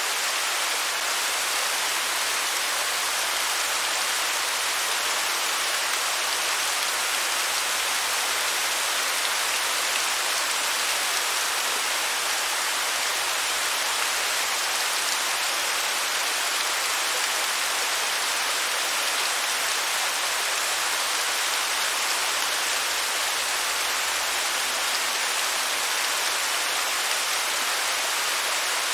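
Waterfall: a steady, unbroken rush of falling water, bright and hissy with little deep rumble.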